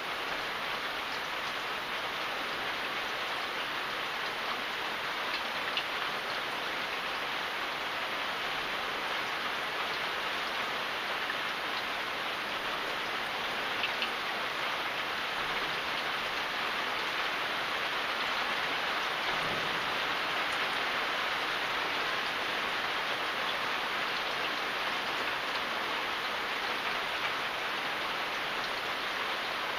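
Steady rain falling, an even dense hiss with a few sharper drop ticks here and there.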